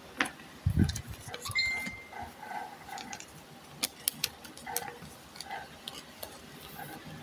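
Foil trading cards and a plastic card sleeve being handled: scattered light clicks and plastic rustles, with a dull thump about a second in.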